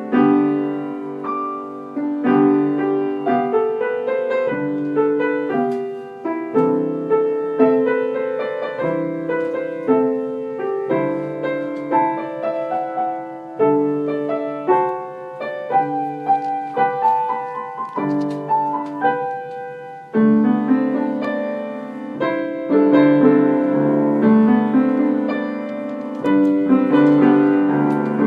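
Piano music: chords and a melody in struck notes that ring and fade, growing fuller and louder about two-thirds of the way through.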